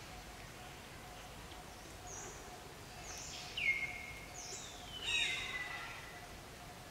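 High-pitched animal calls: a few short, thin notes and two louder calls that slide down in pitch, the louder one about five seconds in, over a faint steady outdoor background.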